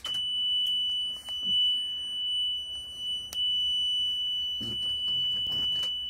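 Fire truck's dashboard warning alarm sounding a steady, high-pitched continuous tone that comes on as the dash switches are flipped, with a few faint switch clicks.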